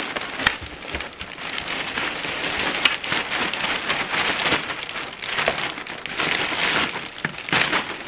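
Dozens of bookmark pouches in plastic poly bags crinkling and sliding over one another as they are tipped out of a large plastic shipping bag onto a table: a continuous rustle with many small clicks.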